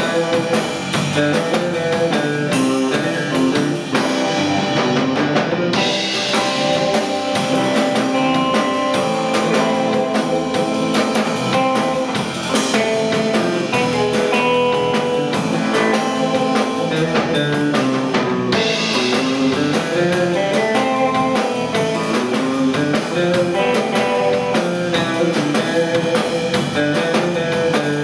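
Instrumental surf rock played live by a guitar, bass and drums trio. A reverb-heavy electric guitar, a Fender Jazzmaster, plays the lead over electric bass and a drum kit keeping a steady, busy beat on the cymbals.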